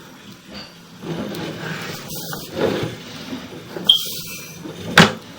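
Sewer camera push cable scraping and rubbing as it is fed into a cast iron drain, with a short squeak near the end and then a sharp knock.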